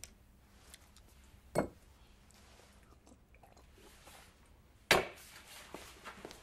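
A pill and a glass of water handled on a hard counter: a few short clicks and knocks over a quiet room, with a louder sharp sound about five seconds in.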